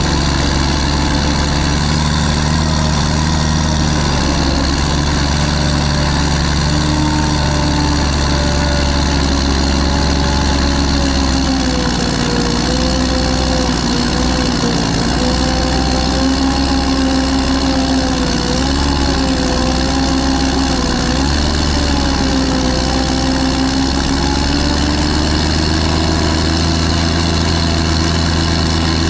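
Bulldozer's diesel engine running steadily, its pitch wavering up and down from about twelve seconds in as it pushes dirt.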